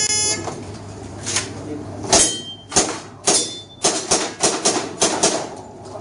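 Shot timer's start beep, then a string of shots from an airsoft pistol: a few spaced shots, then over a dozen in quick succession, two of the early ones followed by a brief ringing tone.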